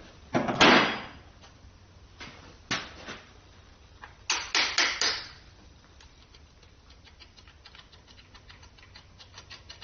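Metal tools and engine parts clanking and knocking as an engine is torn down. There is a loud clatter about half a second in, two knocks near 3 s, and a quick run of four or five knocks around 4 to 5 s, then faint light ticking.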